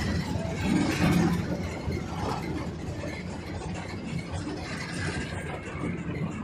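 Engine and road noise of a moving vehicle, heard from inside it as it drives: a steady low rumble with some rattle, a little louder about a second in.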